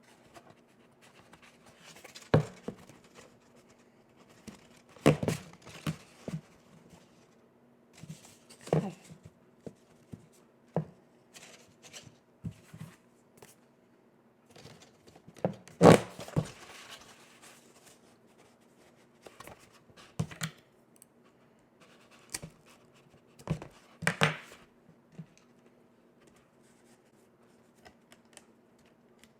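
Cardstock being handled, with scattered taps, knocks and paper rustles as button brads are pushed through the straps and bag and fastened. The loudest knock comes about 16 s in.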